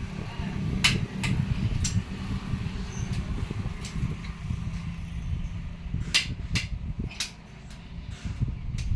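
Metal engine parts and tools clinking as they are handled during cylinder-head reassembly: a few sharp clicks over a steady low rumble, in two clusters, one about a second in and one about six seconds in.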